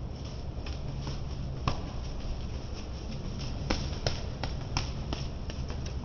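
A green parakeet moving on a person's hand makes a scatter of sharp clicks and taps, one on its own about two seconds in and a quick run of them in the second half, over a steady low hum. It does not call.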